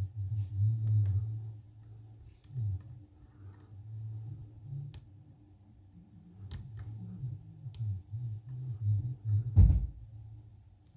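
Small metal clicks and scrapes of a lock pick working the pin stack of a seven-pin Mul-T-Lock high-security lock held under a tension wrench, with low handling rumble and one loud knock near the end.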